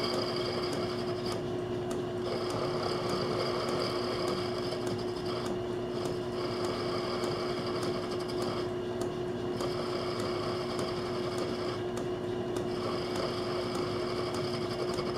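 Small metal lathe running steadily with a constant hum as its tool bit turns a small part. A thin high whine comes and goes in stretches of two or three seconds, about five times.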